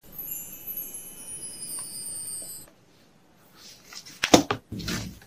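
A high, shimmering chime held for about two and a half seconds with its tones slowly falling, then, after a brief pause, rustling and clattering of packaging being handled.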